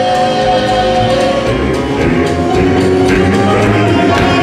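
Southern gospel male vocal group singing live with instrumental backing. A long held chord gives way about two seconds in to a faster, rhythmic passage with a steady percussive beat.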